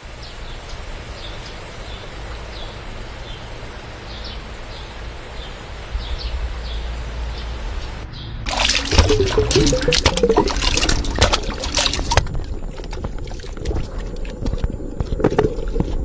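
Creek water running with a steady rush and faint high chirps repeating about once a second; about eight seconds in it changes to closer, louder water trickling and gurgling over a branch, full of splashes and drips. A thin steady high tone joins in for the last few seconds.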